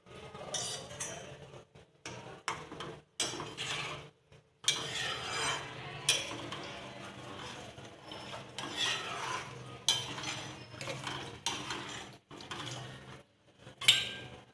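A spoon stirring and scraping in a cooking pot of curry, in irregular strokes. A sharp clink near the end is the loudest sound.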